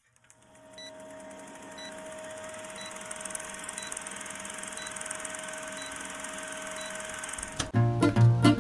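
A steady hum that fades in, with a faint short beep about once a second. Near the end, plucked-string music with a strong beat cuts in much louder.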